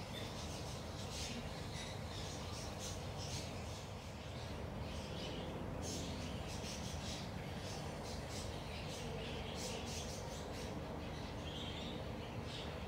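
Small birds chirping in the background, short high chirps coming several times a second, irregularly, over a steady low ambient rumble.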